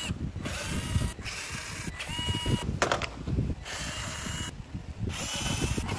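Cordless electric screwdriver whirring in several short bursts as it backs out the plastic housing screws of a battery strapping tool, with knocking and handling of the tool on the bench in between.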